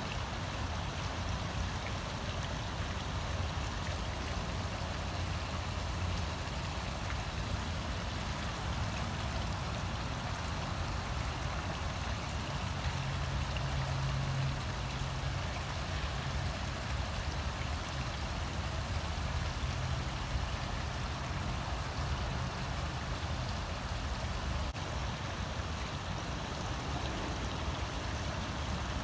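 Water spilling in thin sheets over the stone ledges of a two-tier garden fountain and splashing into the pond below, a steady rush of falling water with a low rumble underneath.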